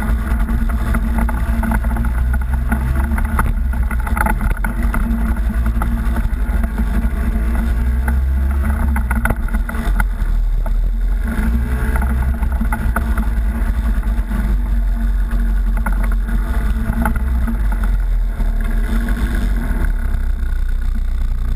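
Off-road vehicle engine running steadily under way on a rough, muddy trail, with rattling and jolts from the ride.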